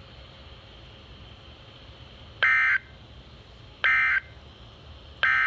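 Emergency Alert System SAME end-of-message code from NOAA Weather Radio: three short, loud, identical bursts of digital data tones, about a second and a half apart, over steady radio hiss. The bursts signal the end of the Required Weekly Test broadcast.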